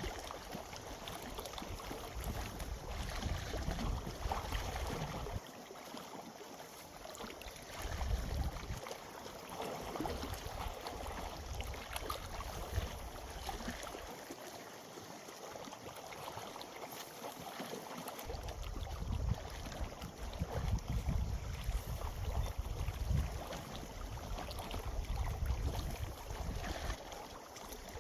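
Wind buffeting the microphone in gusts, with deep rumbling spells of several seconds that come and go over a steady hiss of wind and water.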